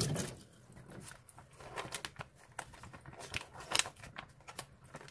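Plastic tofu packaging crinkling and clicking as the tray is pulled out of its sleeve and handled: a string of scattered sharp crackles and clicks.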